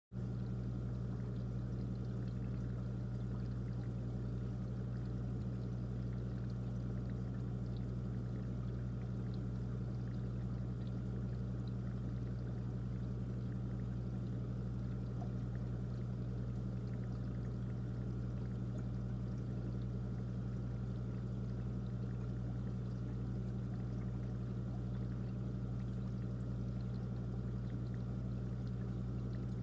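Aquarium pump running: a steady low hum with a constant faint trickle of water.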